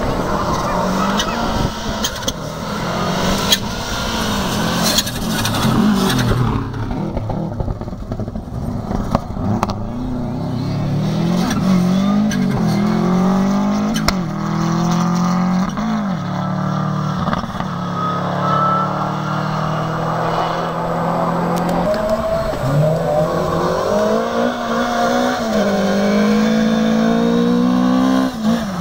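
Rally car engine running hard on a gravel stage, its revs climbing and dropping back again and again as it shifts through the gears.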